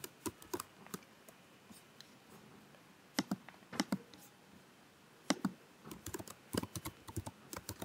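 Typing on a computer keyboard: quiet key clicks in short, irregular runs with pauses between them.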